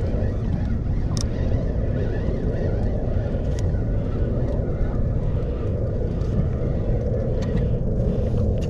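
Steady low rumble aboard a small fishing boat at sea, with a few faint clicks.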